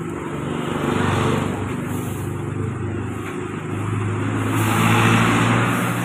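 Handheld garment steamer running: a steady hum with a hiss of steam as it is drawn over the fabric, the hiss swelling about a second in and again near the end.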